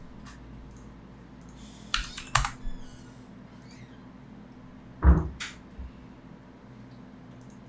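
Computer keys clicking at a desk: a few sharp keystrokes about two seconds in, then another pair about five seconds in, the first of these the loudest with a dull thud.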